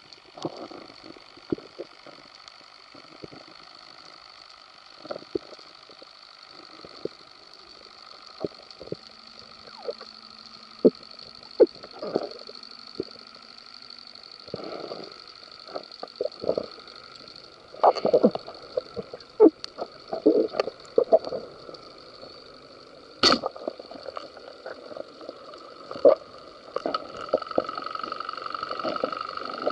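Underwater sound heard through the camera housing on a speargun: a steady high-pitched hum with irregular knocks and clicks scattered through it. The hum grows louder near the end.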